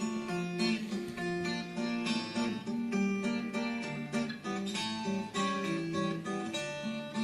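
Acoustic guitar playing a chord introduction, a steady stream of plucked notes and strummed chords, with no singing yet.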